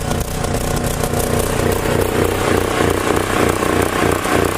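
Onan MicroLite 2.8 RV generator's gasoline engine running steadily on freshly changed oil. It is still running somewhat rough, which the owner expects a new air filter and spark plug to improve.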